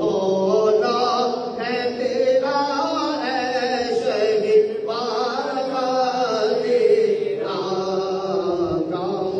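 One man singing a manqabat, an Islamic devotional praise poem, solo into a microphone, in a chant-like style with long wavering held notes.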